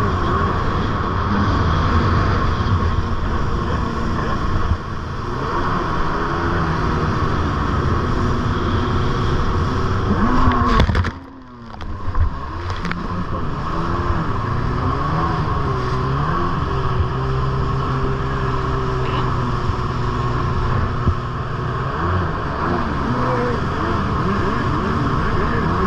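Jet ski engine running hard, its pitch rising and falling with the throttle, over a steady rush of wind and water spray. About eleven seconds in, the sound briefly drops away for a second as a wave of spray washes over.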